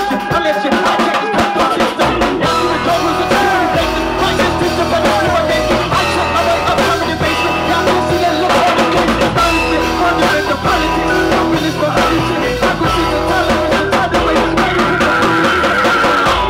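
Live band playing: keyboard, electric bass and drum kit, with a male vocalist singing over them into a handheld microphone.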